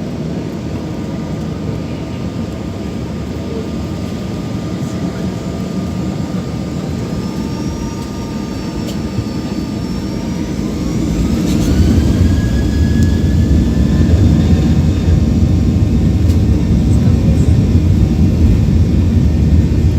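Boeing 737-800's CFM56 jet engines heard from inside the cabin, running steadily at first. About halfway through they spool up with a rising whine, and the rumble grows louder as they reach takeoff thrust.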